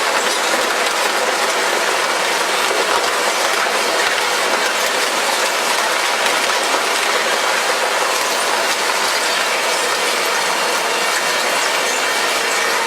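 A Satrind refrigeration fan motor running steadily, a loud even whir with a dense, fast rattling clatter in it.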